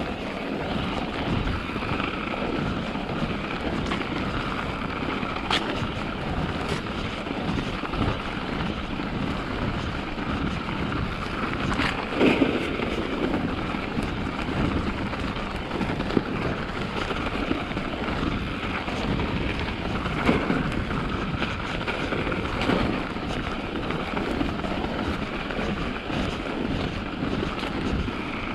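Mountain bike ridden along a snowy forest trail: a steady rush of wind on the microphone and tyre noise, with a few sharp rattles and knocks from the bike over bumps.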